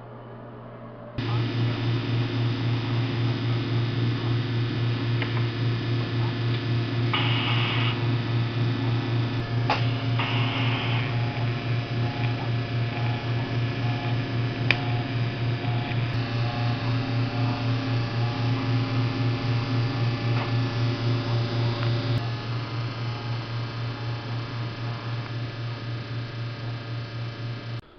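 TIG welding arc on steel frame tubing: a steady electric buzz with a fast, regular pulsing. It starts about a second in and drops a little in level for the last several seconds.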